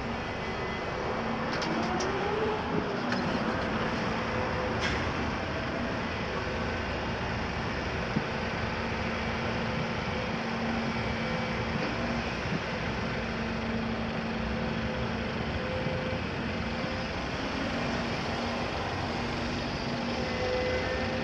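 Heavy diesel machinery, the Volvo EC300 excavator, running steadily with a constant hum. The pitch briefly rises and falls about two to three seconds in, and a few faint knocks follow.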